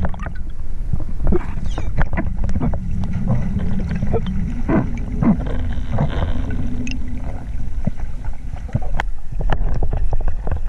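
Muffled underwater sound heard through a camera's waterproof housing: a steady low rumble of water moving past the housing, broken by many scattered sharp clicks and crackles.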